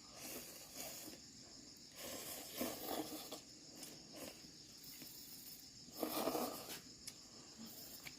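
Insects chirring steadily at a high pitch, with three brief bursts of rustling, scraping noise about a second apart in between.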